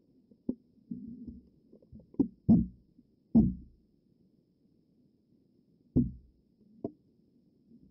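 Muffled low thumps and knocks, heard through an action camera's waterproof housing held just under the sea surface as water moves against the case. There are about six sharp knocks, the loudest two and a half and three and a half seconds in and again near six seconds.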